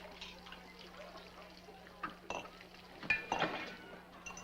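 Dishes and cutlery clinking at a pancake breakfast: a few short clinks about two and three seconds in, over a soft hazy background and a steady low hum.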